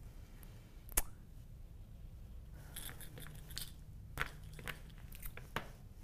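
Lino cutter blade cutting into a soft rubber block-printing plate: faint crunching and scraping with scattered sharp clicks, the strongest about a second in.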